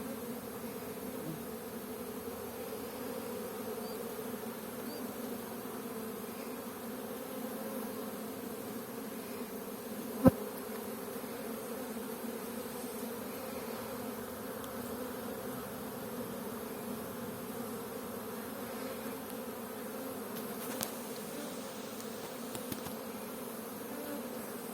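Honeybee colony humming steadily from an open hive, a droning buzz of many bees. A single sharp click about ten seconds in.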